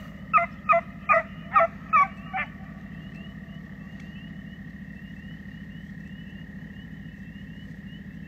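Hound barking six times in quick succession, about two and a half barks a second, then stopping. A steady low hum and a faint, high, repeating chirp continue underneath.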